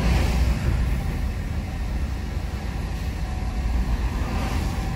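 A tractor-trailer truck's diesel engine and tyres on a wet road, heard from inside the cab as a steady low rumble with road hiss. An oncoming car passes near the end, adding a brief rush.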